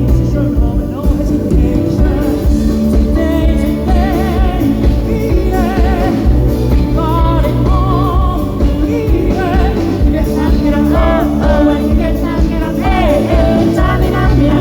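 A live pop performance heard loud from the audience: a male voice singing over a full band, the sung notes held with a wide vibrato.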